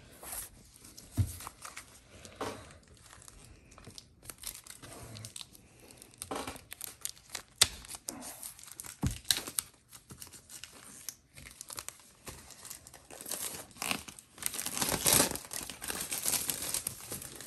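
Plastic shrink-wrap being torn open and peeled off a large boxed CD set: scattered crinkling and tearing, busiest in the last few seconds.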